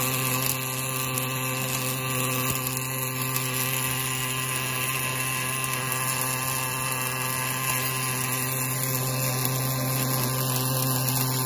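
Wire-fed arc welding by an automatic deep-groove welding machine on a hydraulic cylinder rod end: a steady arc hiss over a constant low hum.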